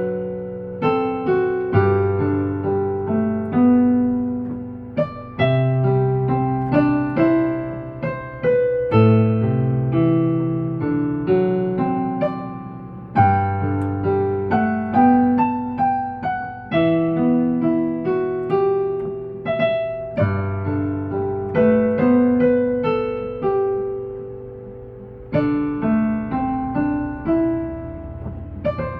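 Solo piano playing a slow ballad melody, each note fading after it is struck, over long-held low bass notes; there is no singing.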